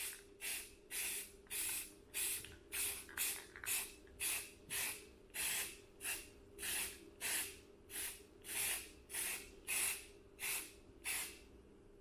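Aerosol spray paint can sprayed in short, rapid bursts of hiss, about two to three a second.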